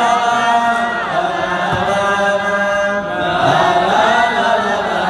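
A man singing an unaccompanied, slow melody into a microphone, holding long notes with ornamented pitch slides about a second in and again past three seconds.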